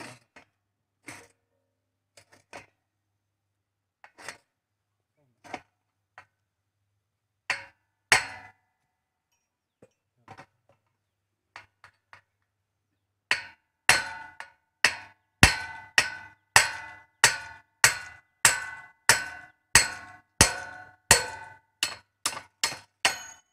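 Hammer striking the metal spring shaft assembly of a rolling shutter: scattered light taps and clinks at first, then from about halfway a steady run of ringing metal-on-metal blows, a little under two a second.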